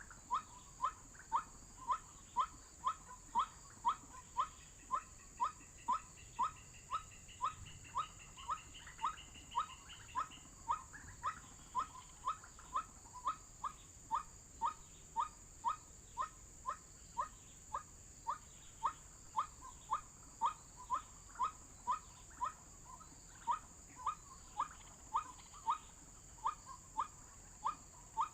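White-breasted waterhen call: a short rising note repeated steadily, about twice a second, used as a lure to draw in waterhens. A steady high-pitched drone runs behind it throughout.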